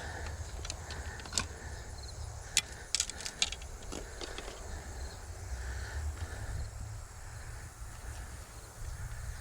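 Low, steady wind rumble on the microphone, with a handful of sharp clicks and light rattles between about one and four seconds in.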